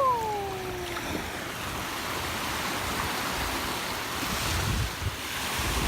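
Small Gulf surf washing on the shore under steady wind, with wind buffeting the microphone in low gusts about four to five seconds in. A short falling cry sounds in the first second.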